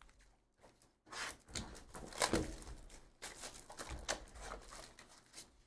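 A cardboard trading-card hobby box being torn open by hand: a string of irregular short rips and scrapes of cardboard and wrapping.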